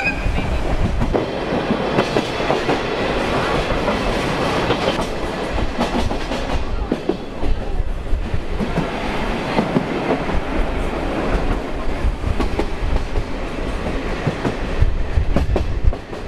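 Sagano Scenic Railway sightseeing trolley train running on its rails: a steady low rumble with irregular clicks and knocks from the wheels.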